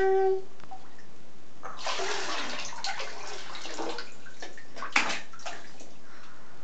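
Bathwater sloshing and splashing in a tub as a toddler scoops and pours with a small cup, in uneven bursts, with a sharp knock about five seconds in.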